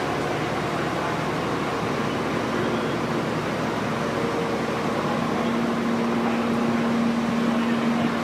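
Steady mechanical drone of dyno-bay machinery, with a low hum that grows louder about five seconds in.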